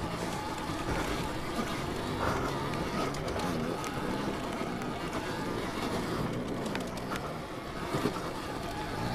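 Alta Redshift MXR electric dirt bike being ridden along a tight trail: steady riding and wind noise with a faint, wavering low tone running under it.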